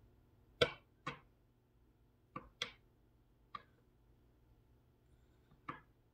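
Tarot cards being handled on a table: about six short, sharp clicks at uneven intervals, faint over quiet room tone.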